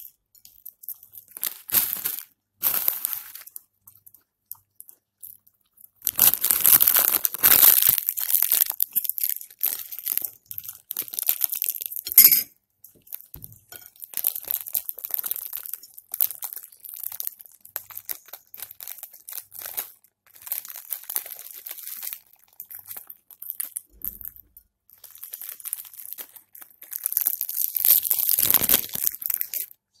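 Clear plastic bag crinkling and rustling in irregular bursts as a ring-necked parakeet pokes its beak into it after the food inside, loudest in two long stretches, with one sharp crackle about twelve seconds in.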